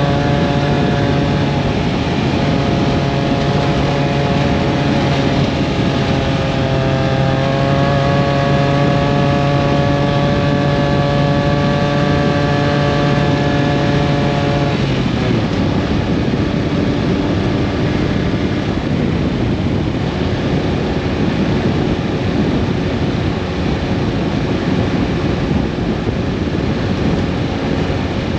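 Motor vehicle driving, its engine running at a steady pitch. About halfway through, the engine note drops away and leaves a steady noise of the vehicle moving.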